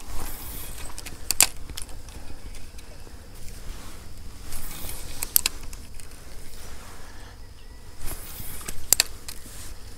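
Spinning rod and reel being worked with a spinner lure: three short swishes, each followed closely by a pair of sharp clicks, over a low steady rumble.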